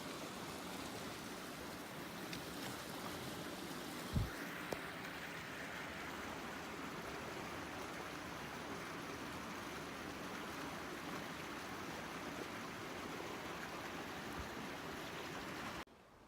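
A creek running steadily, an even rush of water, with a single low thump about four seconds in. The sound cuts off suddenly near the end.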